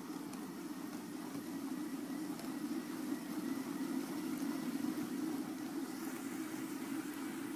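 A steady low mechanical hum with a faint high whine.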